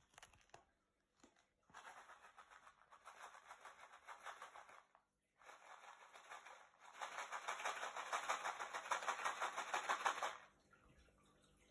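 Fish-food pellets rattling in a plastic bag as it is shaken: a rapid, even clatter in two stretches, the second louder and stopping suddenly near the end.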